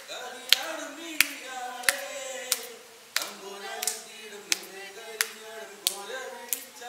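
A man singing a Malayalam song into a microphone, with hand claps keeping a steady beat, about three claps every two seconds.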